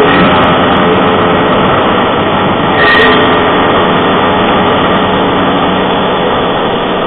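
Ride noise from a moving motorcycle: a small engine running steadily under heavy road and wind noise, with a brief louder crackle about three seconds in.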